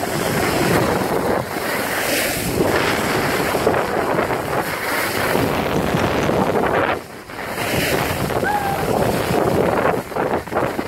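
Wind buffeting a phone's microphone while skiing downhill, mixed with the hiss of skis sliding over the snow; it dips briefly about seven seconds in.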